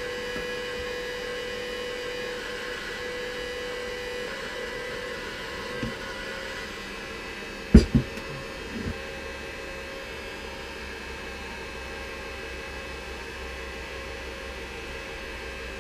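A steady electric hum with a faint whine, and a few knocks of metal parts being handled on the workbench, the loudest about eight seconds in.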